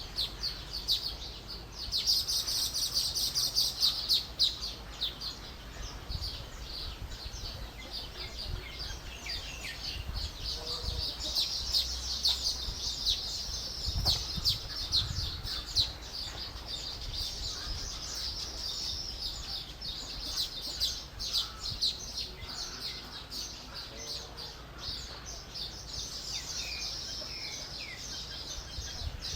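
A colony of weaverbirds chattering continuously: a dense stream of rapid, high-pitched chirps from many birds at once, loudest a couple of seconds in, over a low rumble.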